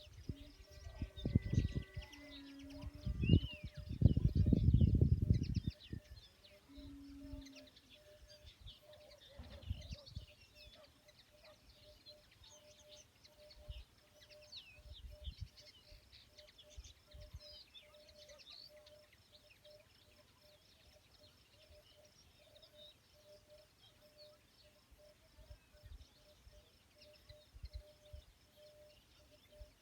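Small birds chirping outdoors, many short calls for the first twenty seconds or so and then thinning out. Loud low thumps and a rumble in the first few seconds, and a faint, evenly pulsing tone underneath throughout.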